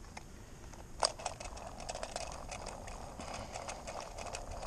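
A sharp click about a second in, followed by a run of light, irregular clicks and rattles.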